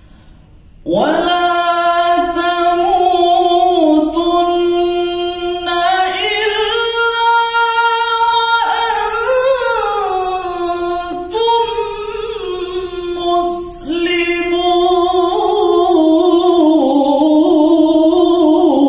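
A solo male qori recites the Qur'an in the melodic tilawah style, unaccompanied, through a microphone. He holds long, high notes and ornaments them with turns. The voice comes in about a second in.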